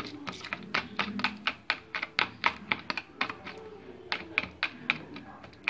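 Metal spoon clicking rapidly against a plastic bowl as a raw egg mixture is beaten, about five clicks a second: the omelette batter being whisked until it starts to froth.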